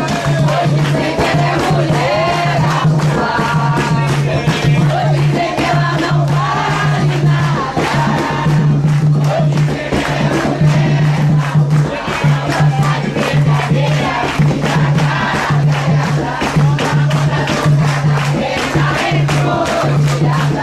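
Group of voices singing a chant together over steady drumming and shaken rattles, loud and rhythmic: an Umbanda ponto sung at a ceremony.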